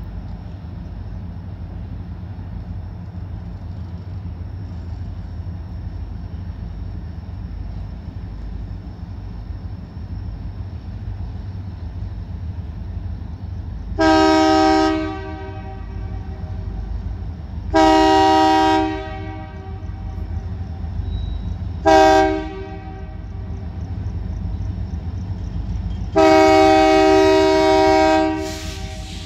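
Locomotive air horn blowing the grade-crossing signal: two long blasts, one short, then one long, several tones sounding together as a chord. A steady low rumble from the train runs underneath.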